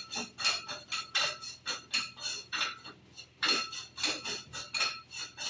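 Stainless-steel microfiltration cartridge housing being handled at its lid: an irregular run of short metallic clicks and scrapes, about three or four a second.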